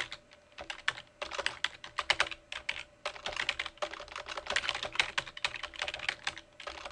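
Typing on a computer keyboard: a run of key clicks, several a second, with brief pauses, as a search phrase is typed in.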